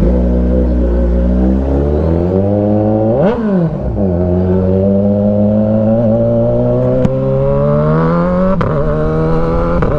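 Kawasaki Ninja 1000SX inline-four running through a loud aftermarket AR short exhaust as the bike pulls away, the engine note rising, dropping sharply about three seconds in, then climbing steadily again with another brief dip near the end.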